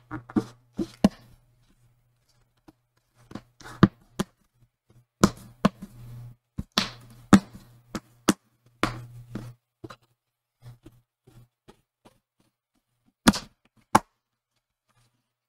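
Plastic display bezel of an HP 15s laptop lid being pressed down by hand, its retaining clips snapping into place in a run of sharp, irregular clicks, with a pause and then two more clicks near the end.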